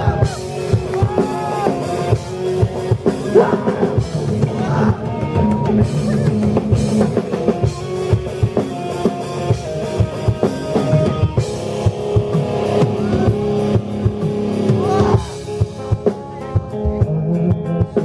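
Live rock band playing, with drum kit and electric guitar. About two seconds before the end the drums drop out and the guitar carries on.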